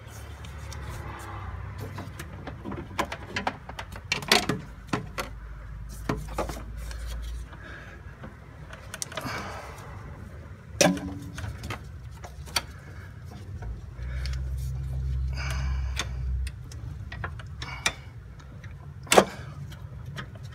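Scattered clicks, taps and knocks of gloved hands working metal and plastic fittings on a clutch master cylinder and its line in a car's engine bay. A few sharper knocks come about four, eleven and nineteen seconds in. A low rumble comes and goes in two stretches.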